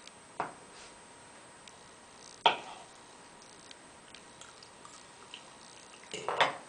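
Knife and fork clicking against a wooden cutting board and each other: a few sharp, separate clicks, the loudest about two and a half seconds in, and a quick cluster of clicks near the end.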